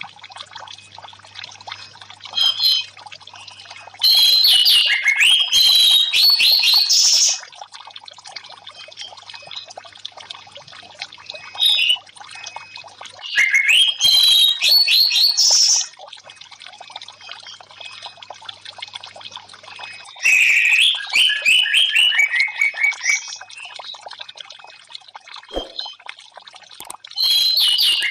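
Orange-headed thrush singing loud, rapid phrases of about three seconds each, four times with pauses of several seconds, plus a couple of short calls in between, over steady trickling water.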